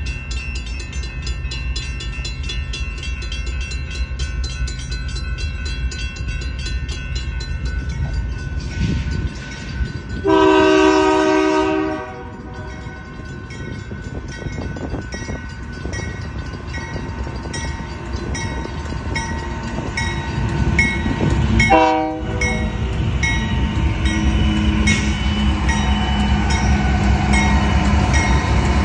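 Electronic railroad crossing bell ringing steadily while a Union Pacific freight locomotive approaches. The locomotive horn sounds one long blast about ten seconds in and a short blast about twenty-two seconds in. The low rumble of the train grows louder toward the end.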